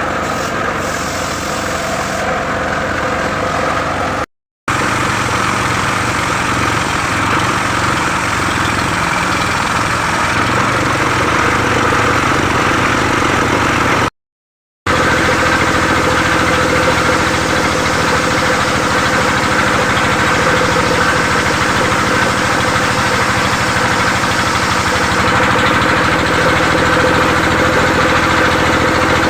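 Saw engine running steadily at an even speed, with two brief moments where the sound drops out completely.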